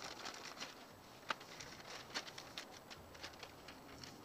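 A sheet of newspaper crinkling and rustling as it is handled. It makes a run of faint, irregular crackles with two sharper snaps, one at about a second in and one at about two seconds in.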